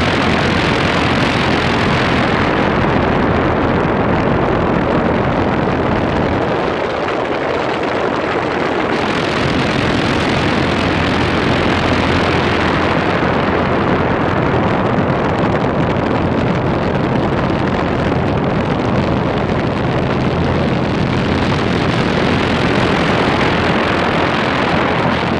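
Goodman 3-ton high-efficiency central air conditioner running: a steady rush of air from the condenser fan over a low hum, with no change in pace.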